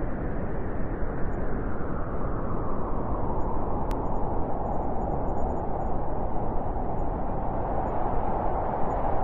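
Snowstorm wind blowing in a steady, dense rush, its higher part building a little in the second half.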